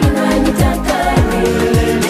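Up-tempo pop song with a deep kick drum that drops in pitch on every beat, just under two beats a second, under sustained chords and singing.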